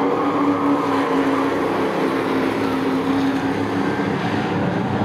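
A pack of short-track race trucks running at speed, their engines blending into a steady drone.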